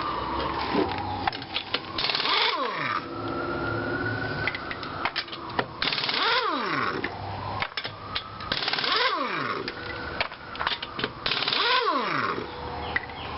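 Pneumatic impact wrench on lug nuts, four times in a row: each time the air motor whines up, hammers in a loud rattle for about a second, then winds down in a falling whine as the trigger is let go.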